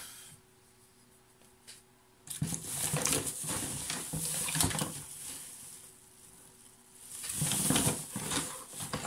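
Rustling and clattering of loose loudspeaker drivers and parts being rummaged through by hand, in two bouts after a short quiet start.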